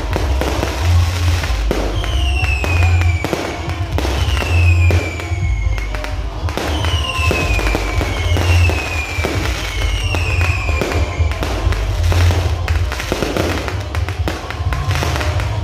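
Aerial fireworks going off in rapid succession, a dense run of bangs and crackles, with five falling whistles about two to eleven seconds in. Music with a heavy bass beat plays underneath.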